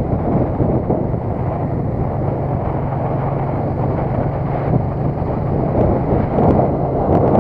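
Wind rushing over the microphone of a moving vehicle, over a steady low engine drone as it drives along a mountain road.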